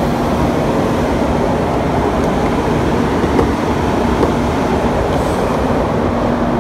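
Steady, unbroken engine drone with a constant low hum, typical of heavy diesel trucks idling nearby.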